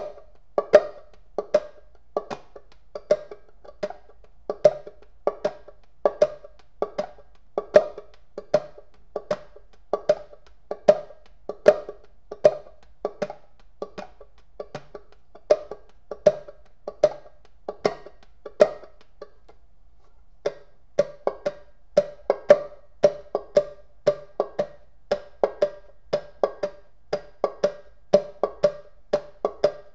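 Banjo played clawhammer style: a steady boom-chuck rhythm of struck single notes followed by brushed strums, about three strokes a second. It breaks off for about a second and a half some two-thirds of the way through, then picks up again.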